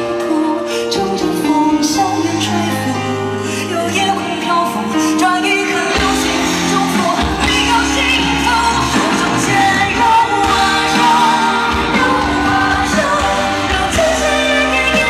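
Live pop song: a solo singer's voice carries the melody over a full band with drums and keyboards. The bass and drums fill out about six seconds in.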